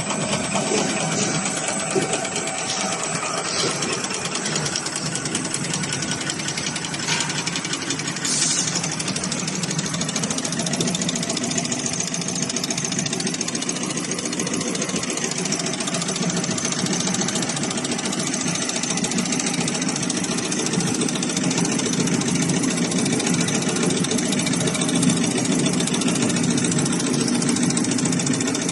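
Napkin-making machine running steadily: a dense, fast mechanical clatter with a thin high whine over it.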